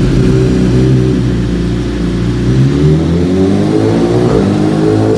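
2017 BMW S1000RR's inline-four engine, breathing through an Akrapovic exhaust, running under load on a chassis dyno. The pitch holds fairly steady at first, then climbs steadily from about halfway in as the revs rise.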